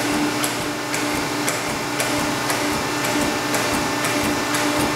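Diacro 75-6 hydra-mechanical press brake running in hand mode, a steady hum from its drive with sharp ticks about twice a second.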